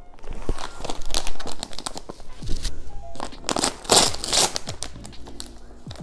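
Plastic snack bag crinkling and tearing as a bag of matcha crepe snacks is opened, loudest about a second in and again around four seconds in, over background music.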